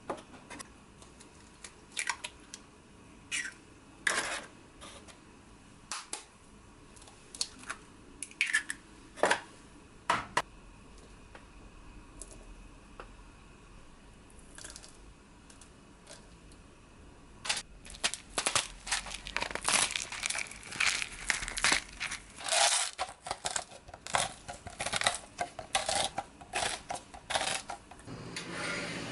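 Eggs tapped and cracked into metal muffin-tin cups, a few sharp clicks spread over the first ten seconds. After a quiet stretch, over roughly the last third, a dense run of rapid crunching clicks as salt and black pepper are ground over the filled cups.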